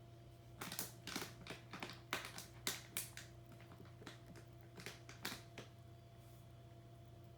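A hamster eating: a run of quick, irregular small clicks and crackles for about five seconds, over a faint steady electrical hum.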